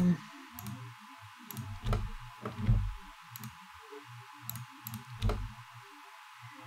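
Computer mouse buttons and keyboard keys clicking: about a dozen irregular, separate clicks, many with a soft low thud under them.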